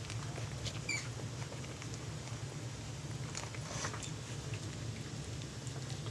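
Young puppies in a litter, about two weeks old, making small noises: one short high squeak about a second in, with light scratching and pattering of paws. A low steady hum runs underneath.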